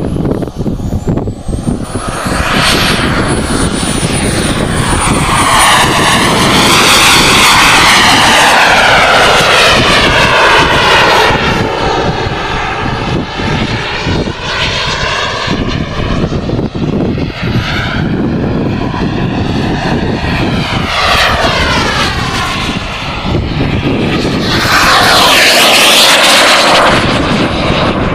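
Radio-controlled model jet's small turbine engine running as the jet flies past, swelling and fading with each pass, loudest about a quarter of the way in and again near the end. A high whine falls in pitch over the first few seconds.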